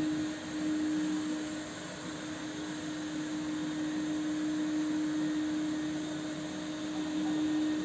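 Steady machine hum with one constant, unchanging tone.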